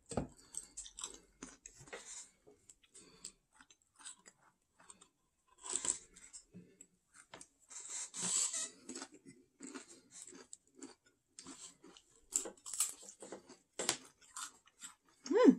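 People chewing crunchy snacks spread with brown cheese: scattered small crunches and mouth sounds, with a few louder crunches along the way.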